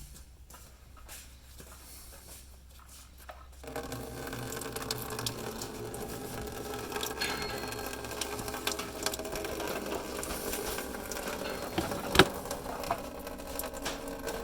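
Engine coolant draining from an opened radiator drain cock into a bucket: a steady stream that starts suddenly about four seconds in and keeps running, with one sharp knock near the end.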